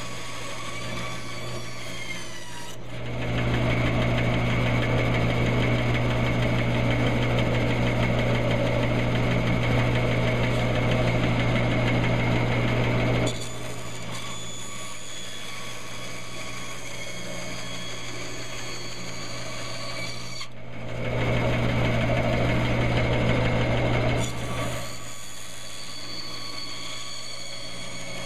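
Bandsaw running with a steady hum, its blade cutting through a basswood block in two louder stretches: one of about ten seconds starting near three seconds in, and a shorter one after about twenty seconds. Between the cuts the saw runs free.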